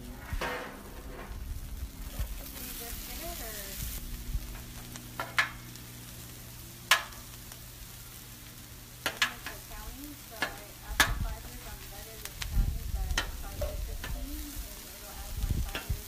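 Meat and vegetables sizzling on a Blackstone flat-top griddle, with a metal spatula scraping and striking the steel cooktop in several sharp clacks.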